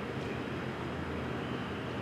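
Steady low background rumble with no clear pitched tone in it.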